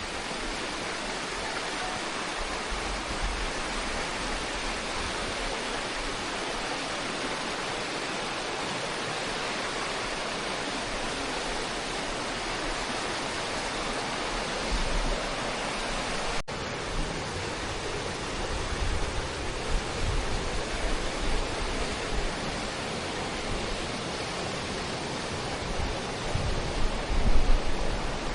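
Steady rush of falling water. After a sudden cut about halfway through, gusts of wind buffet the microphone with low rumbles, strongest near the end.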